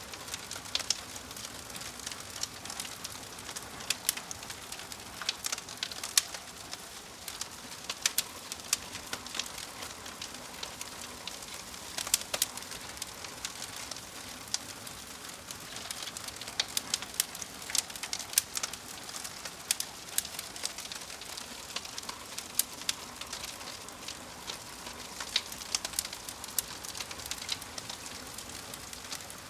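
Wood fire burning in a fireplace: logs crackling with irregular sharp pops and snaps over a steady soft hiss.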